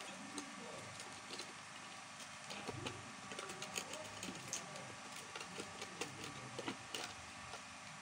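Irregular light clicks and taps of hard plastic being handled: the cover of a white plastic submersible-pump control box being pressed and fitted.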